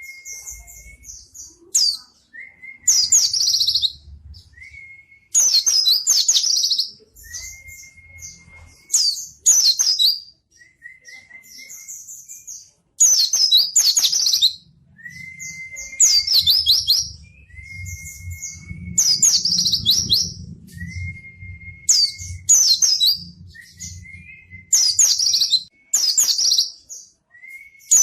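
White-eye (pleci) singing rapid chattering song phrases over and over, each phrase a quick burst of high notes about a second long, often led by a short level whistle, one roughly every two seconds.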